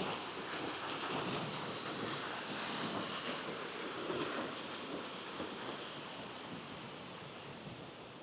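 Footsteps on a wet, muddy path strewn with fallen leaves, a step about every second in the first half, over a steady hiss of damp forest air. The sound grows quieter over the last few seconds.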